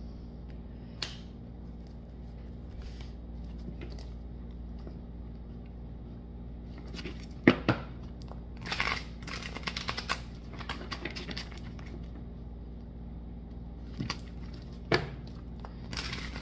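Tarot cards handled and shuffled on a tabletop. There are two sharp knocks about seven and a half seconds in, then a run of quick flicking card clicks, a few single clicks later, and a riffle shuffle near the end. A steady low hum runs underneath.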